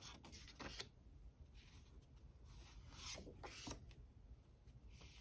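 Faint rustling of 4x6 cardstock journaling cards being leafed through by hand: a few soft swishes of card sliding over card, a pair near the start and another pair about three seconds in.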